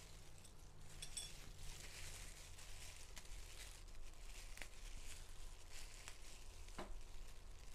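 Faint rustling of fresh herb leaves being stripped from their stems and disposable plastic gloves crinkling as rolls are assembled by hand, with two light clicks, one near the middle and one near the end.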